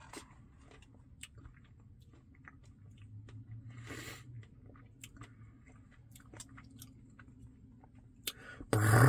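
Close-miked wet chewing and mouth clicks of a person eating a Dairy Queen Blizzard, soft ice cream with a little crunch. A short louder, noisier mouth sound comes about four seconds in, and a sudden loud burst comes just before the end.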